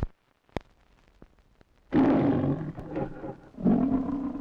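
The MGM logo lion roaring twice, first about two seconds in and again near the end. Before the roars there are a couple of sharp pops and faint crackle from the old film soundtrack.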